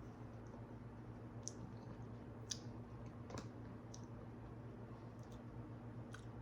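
Faint, scattered mouth clicks and smacks from tasting the seasoning on a dill pickle rice crisp, a few separate ticks over a low steady hum.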